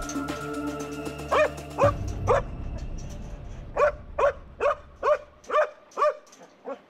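Search-and-rescue dog barking: two sharp barks, then a quick run of about eight at roughly two a second. Background music fades out over the first couple of seconds.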